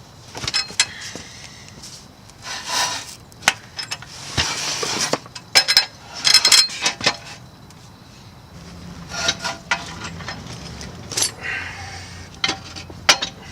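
Steel clanking, knocking and scraping, with some ringing, as a car's rear subframe is handled and set up on a floor jack and jack stands.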